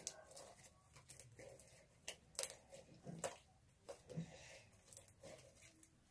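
Clear glue slime being picked up and handled by hand, giving faint, irregular clicks and soft pops.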